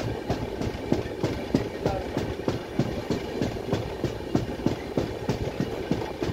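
Wheels of a moving passenger sleeper coach clattering on the track, heard from the coach doorway: a steady rumble with a fast, regular knocking, several knocks a second. The uploader puts the knocking down to a flat wheel on the coach.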